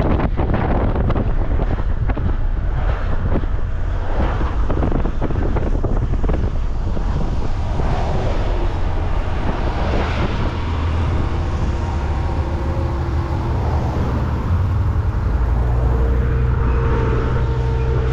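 Wind buffeting the microphone over the steady low rumble of a car driving along a street.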